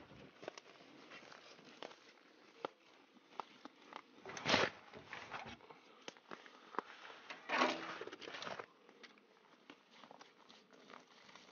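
Fishing gear being unloaded and handled: faint rustling, scraping and small knocks, with two louder rustling scrapes, a short one about four and a half seconds in and a longer one about eight seconds in.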